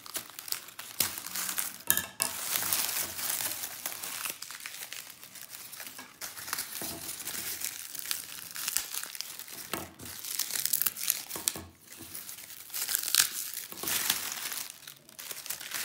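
Dry popcorn husks crackling and tearing in uneven bursts as they are stripped from the cobs by hand.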